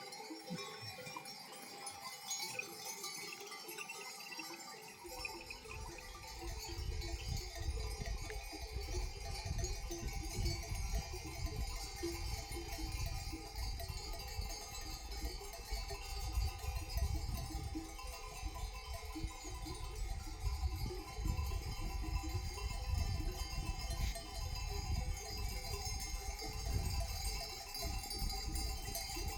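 Many sheep bells on a grazing flock, clinking and ringing steadily. A low rumble joins about five seconds in.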